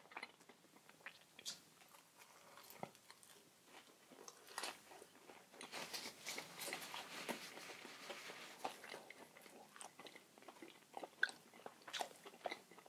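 Close-up chewing and biting into a flaky red bean pancake: a run of small crisp crunches and mouth sounds, busiest in the middle.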